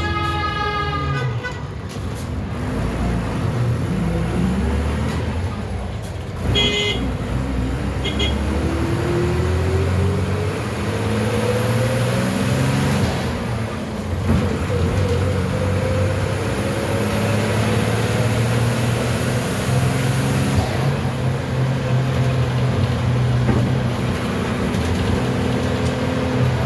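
Bus engine, an MWM TCA 6.10 six-cylinder converted to run on compressed natural gas, pulling hard. Its pitch climbs twice with a drop between, as the bus accelerates through the gears. Two short high toots come about seven and eight seconds in.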